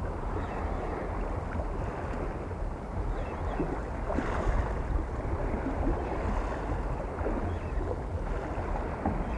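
Wind rumbling on the microphone over open water, a steady deep noise with the wash of small waves.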